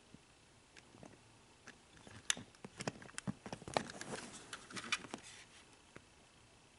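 Light, irregular clicks and taps of a small diecast model car and its plastic base being handled, bunched between about two and five seconds in.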